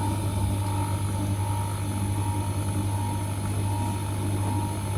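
Optical lens edging machine running with a steady motor hum, low and even, with a faint constant whine above it.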